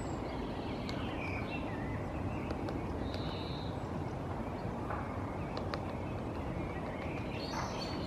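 Great spotted woodpecker pecking at tree bark while foraging: light, scattered taps. Other small birds sing short high whistles and chirps over a steady low rumble.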